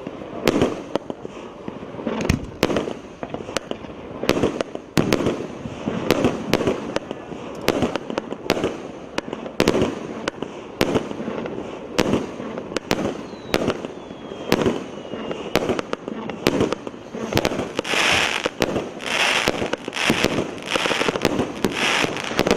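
A multi-shot firework cake firing shot after shot, with a sharp bang roughly every second. In the last few seconds the bursts turn to a hissing, crackling spray.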